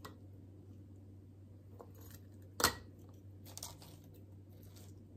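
Chopped cabbage being spooned into glass canning jars through a plastic funnel: quiet rustling and handling, with one sharp clink about two and a half seconds in.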